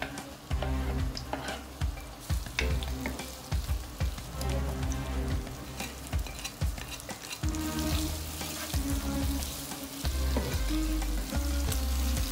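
Sliced red onions frying in oil in a pan: a steady sizzle that grows stronger about halfway through, with scattered clicks of a wooden spatula. Background music plays underneath.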